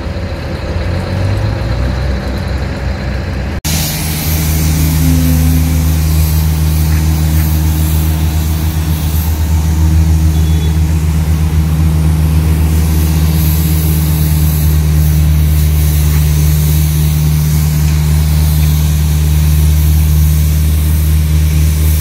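Engine of a pneumatic-tyred road roller running loudly and steadily with a deep, even hum. About three and a half seconds in the sound cuts abruptly to a louder, steadier engine note.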